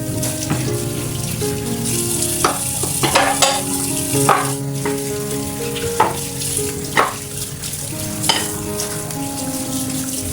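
Food sizzling in a frying pan, with a utensil knocking against the pan about seven times as it is stirred, over soft background music.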